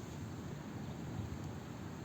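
Steady outdoor nature ambience: an even low rumble with a few faint, high chirps.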